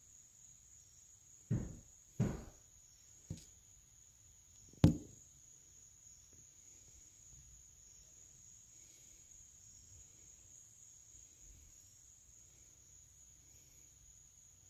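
Crickets chirring steadily at a high pitch, with four sharp knocks in the first five seconds, the last one the loudest.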